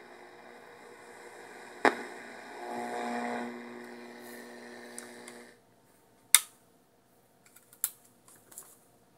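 Old Philco Sportsman portable radio giving out static and hum with steady whining tones as its dial knob is turned, on its first power-up before repairs, sounding in need of repair. There is a sharp click about two seconds in and a brief steady tone near three seconds, then the radio's sound cuts off suddenly about five and a half seconds in, followed by a few sharp clicks and knocks.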